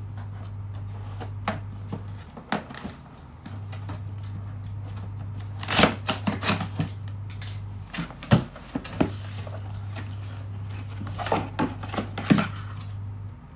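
Scissors snipping and slicing packing tape on a cardboard laptop box, then cardboard flaps scraping and crackling as the box is opened and handled, in clusters of sharp clicks and rustles. A steady low hum sits underneath and drops out a few times.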